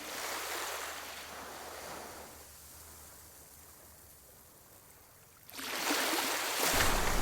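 Ocean waves washing: a rush of noise that fades away, then another that builds sharply about five and a half seconds in.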